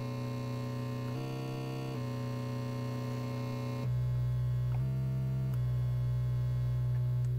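Korg NTS-1 digital synthesizer holding one low note at a steady pitch while its oscillator knobs are turned, the tone's character changing in several steps.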